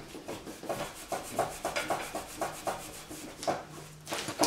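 Cloth rubbing paste wax onto a steel Victor double spring leghold trap in quick back-and-forth strokes, about four a second, with a sharper knock near the end.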